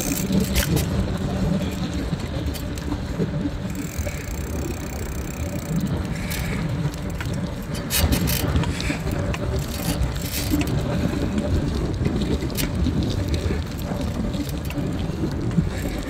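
Busy city street ambience: a steady rumble of road traffic with people's voices in the background and a few short, sharp knocks.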